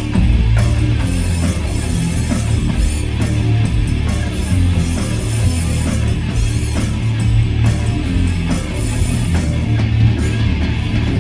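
A rock band playing a loud, heavy rock song live, with electric guitar and bass over a steady beat, no vocals in this stretch.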